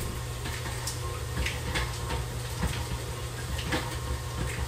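Stand mixer running with its beater churning banana batter in a steel bowl as the flour mixture goes in: a steady motor hum with scattered clicks and knocks.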